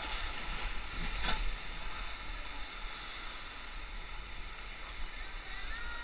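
Whitewater rapids rushing steadily around an inflatable raft, with one sharp hit about a second in.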